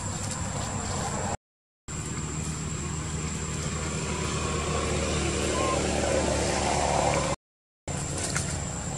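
Steady low hum of motor-vehicle engines, swelling louder through the middle and peaking shortly before it cuts out. The sound drops out briefly twice.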